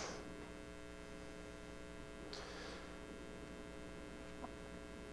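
Low, steady electrical mains hum, a single buzz made of several even tones. Two soft rustles come through it, one at the start and one about two and a half seconds in.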